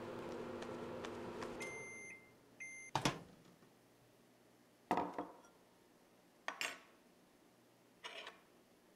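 Microwave oven humming, then stopping with two short electronic beeps about two seconds in. Four separate knocks and clunks follow over the next few seconds.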